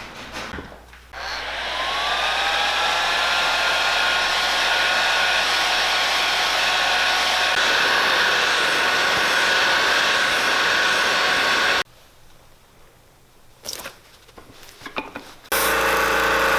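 Motor of a cobbler's finishing machine spinning up with a rising whine, then running steadily, used for finishing shoe heels and sole edges. It stops about twelve seconds in and starts again near the end.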